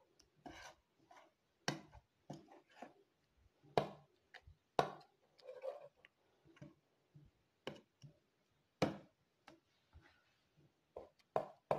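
A metal spoon stirring thick green chutney paste in a bowl: irregular clicks and scrapes as the spoon knocks against the bowl, a dozen or more over the stretch, with soft wet sounds from the paste.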